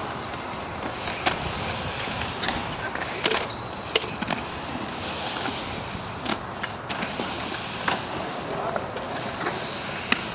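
Inline skate wheels rolling on a concrete skatepark bowl, a steady rumbling hiss, with scattered sharp clacks as the skates hit the concrete and coping.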